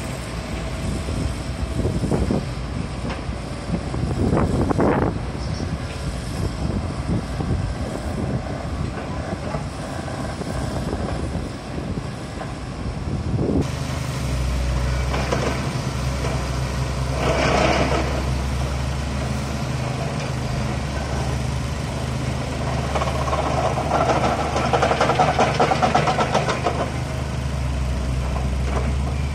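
Heavy diesel excavators with pile-driving attachments running on a sheet-piling site. The first half is a rough, uneven din with a few knocks. About 14 s in it changes suddenly to a steady low drone, which swells louder twice.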